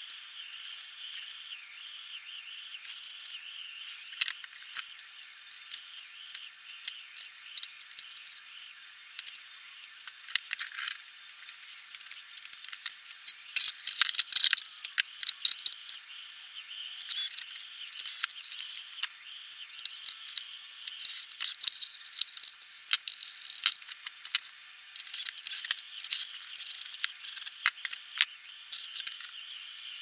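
Small metal parts, screws and hand tools clinking and rattling in a parts tray, with knocks and scrapes of the power supply's metal cover being slid back on and handled; irregular clicks, busier in the second half.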